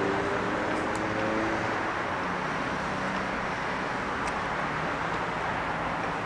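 Steady road traffic noise, with a vehicle's engine hum fading away over the first two seconds.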